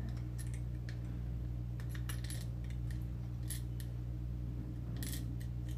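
Small steel razor blade being prised out of a plastic thread-cutter housing with a small screwdriver: scattered faint clicks and light ticks of metal on plastic, over a steady low hum.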